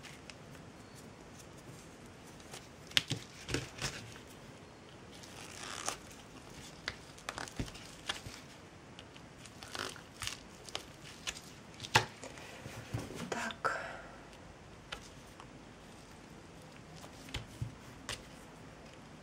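Hand-handling noises from working on a jute craft figure: scattered light clicks and taps, with short rustling, crinkling passes about five seconds in and again around thirteen seconds.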